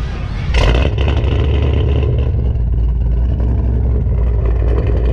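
Pontiac G8's cammed V8 with JBA long-tube headers and Borla ATAK exhaust, heard at the quad tailpipes: it jumps sharply louder about half a second in, a rev, then keeps running loud with a deep, choppy rumble, "singing".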